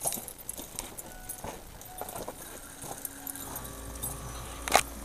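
Keys jangling and clicking in a pickup's ignition as it is switched on, then about three and a half seconds in a steady low hum with faint steady tones starts, with one sharp click near the end.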